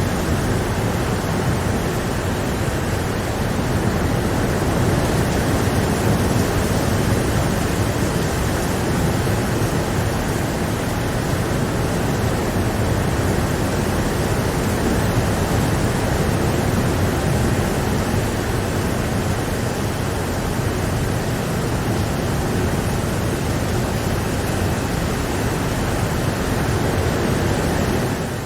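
Steady rain falling: an even, unbroken hiss with no single drops standing out.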